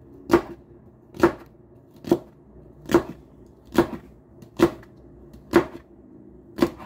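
Chef's knife slicing a nopal cactus pad into long strips and striking the cutting board: eight sharp, evenly spaced chops, a little more than one a second.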